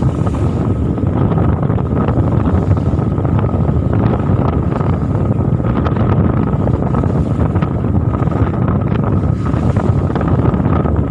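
Steady, loud rumbling noise aboard a fishing boat at sea, with a thin steady whine and wind buffeting the microphone.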